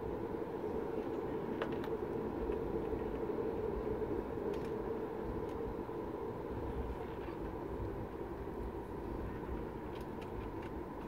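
Steady cabin noise of a Boeing 737 MAX 8 taxiing, heard from a window seat beside its CFM LEAP-1B engine: a constant hum and low rumble, with a few faint clicks.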